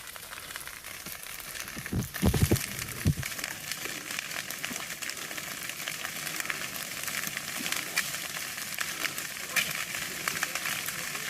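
Forest fire burning dry branches and alang-alang grass, crackling with a dense, steady run of small snaps and pops. A few dull thumps come about two to three seconds in.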